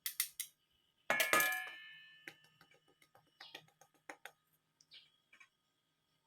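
A spoon clinking against a mixing bowl as baking powder is added: a few light clicks, then about a second in one loud ringing clink that dies away, followed by scattered light taps.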